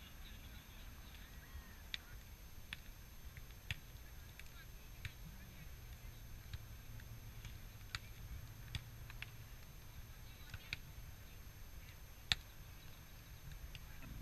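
Faint outdoor beach ambience: a low, steady rumble of wind and surf, with light clicks scattered irregularly throughout and one sharper click about twelve seconds in.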